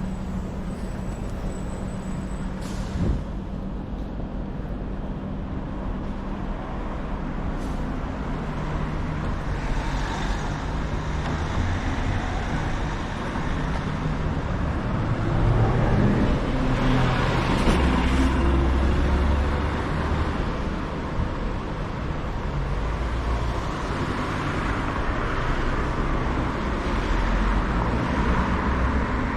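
City street traffic: the steady rumble of engines and tyres from passing vehicles, growing louder about halfway through as a vehicle passes close by.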